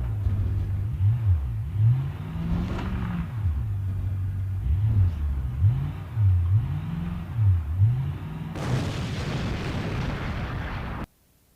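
A low droning tone, bending slowly up and down in pitch, over a rumble. About eight and a half seconds in, a sudden loud burst of noise like static or a blast takes over, then cuts off abruptly to silence just before the end.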